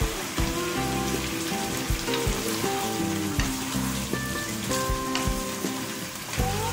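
Stir-fried vegetables sizzling in a frying pan while being tossed with a wooden spatula, with occasional knocks of the spatula against the pan. Background music plays along with it.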